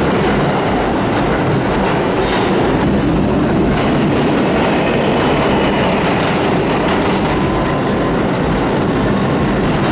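New York City subway train pulling into an underground station platform: a loud, steady rumble of steel wheels running on the rails.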